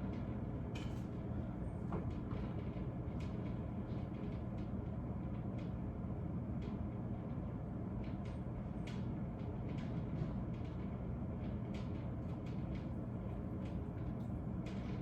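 A spoon stirring macaroni in a pot on the stove: scattered light clicks over a steady low rumble.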